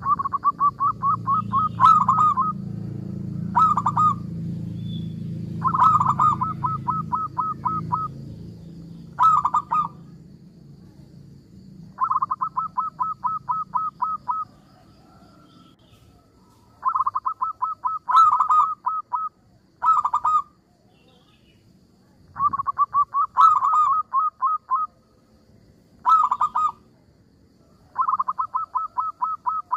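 Zebra dove (perkutut) singing: repeated phrases of quick staccato coos, each a rapid run of about ten notes followed by a short burst of two or three, repeating every few seconds. A low background rumble fades out within the first few seconds.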